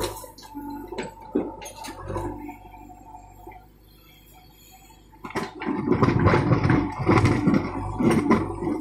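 JCB 3DX backhoe loader's diesel engine running steadily with a hydraulic hum as the bucket tips soil into a tractor trolley. About five seconds in comes loud, continuous crunching and scraping as the backhoe bucket digs into earth and stones.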